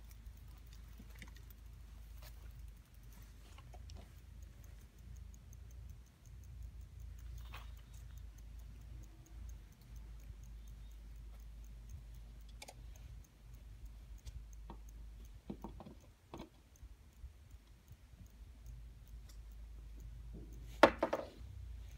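Steady low rumble with scattered faint clicks and knocks, then one loud sharp knock followed by a brief rattle near the end.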